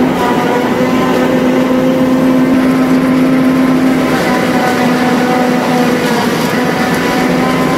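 Tractor engine running steadily at an even working speed, with a constant humming tone over the engine noise, as corn silage is made.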